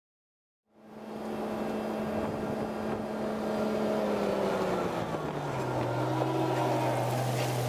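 Electric suburban train heard from inside the carriage: a steady motor hum with running noise that sets in abruptly just under a second in, its pitch sliding down about halfway through and then holding lower.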